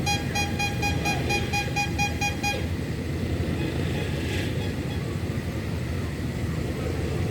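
A bus horn sounding a rapid string of identical beeps, about five a second, for about two and a half seconds, over the steady rumble of traffic.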